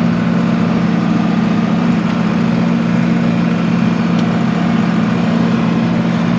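Tractor engine running steadily at raised throttle, driving a batwing rotary mower with its blades spinning, heard from inside the cab as an even, unchanging drone.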